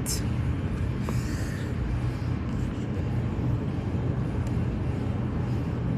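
Steady low mechanical hum, with a faint click and a short hiss about a second in.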